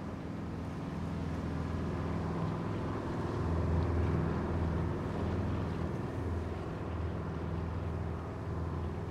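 Boat engine running steadily, a low droning hum that grows a little louder over the first few seconds.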